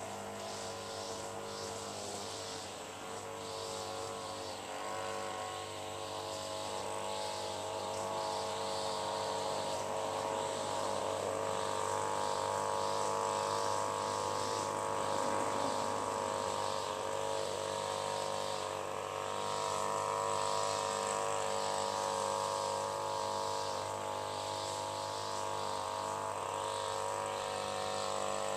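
A distant engine hums steadily, growing louder over the first ten seconds or so, with repeated high chirps over it.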